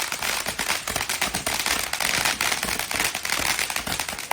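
Consumer fireworks set off close by: a dense, rapid run of crackling pops without a break, strongest near the middle.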